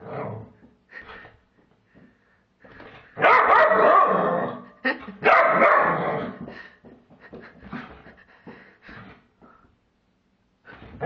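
Dog vocalizing: two loud, drawn-out barking bouts about three and five seconds in, with softer short yips and whines between them and another loud call at the very end.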